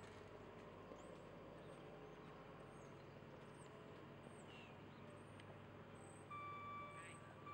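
Near silence: faint outdoor ambience with brief high chirps, and a steady beep-like tone held for about two seconds near the end.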